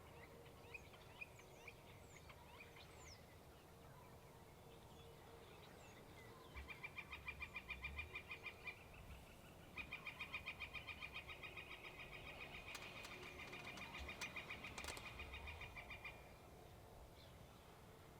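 A bird's faint rapid trill of evenly pulsed notes, about five a second, in two runs: a short one, then a longer one of about six seconds. Faint chirps of small birds come in the first few seconds.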